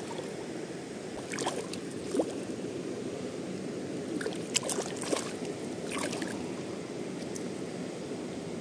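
Steady rush of river water in the shallows, with a few short splashes as a small hooked chocolate mahseer thrashes at the water's edge.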